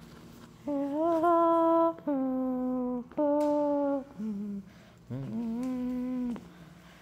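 A person humming a slow tune in long held notes, each about a second long with short pauses between them, some of them sliding up into pitch.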